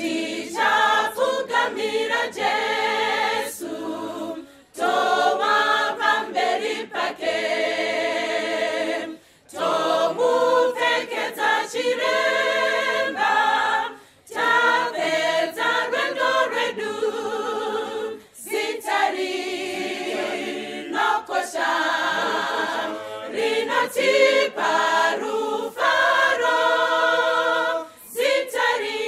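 Choir singing a cappella, in phrases of about four to five seconds with brief breaks between them.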